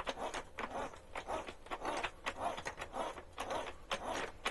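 Scale model of the Titanic's reciprocating steam engine being turned over by hand: its crankshaft, connecting rods and pistons give a run of irregular clicks and scrapes as they move. The mechanism is not yet lubricated.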